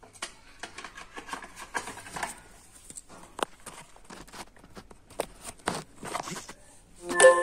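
Irregular light clicks and taps from handling small parts and tools.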